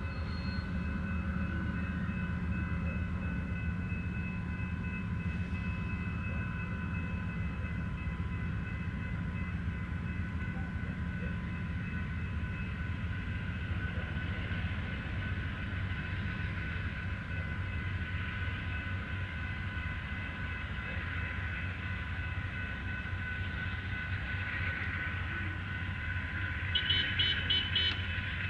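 Amtrak California Zephyr's bi-level Superliner passenger cars rolling slowly past, a steady low rumble with steady high-pitched tones over it. A brief rapid high rattle comes near the end.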